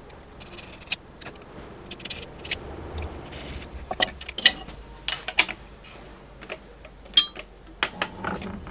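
A hooked scoring knife scraping along the inside corner of an aluminium bar in a few short strokes, followed by a series of sharp metallic clicks and taps as the aluminium bar and an aluminium T-track are handled.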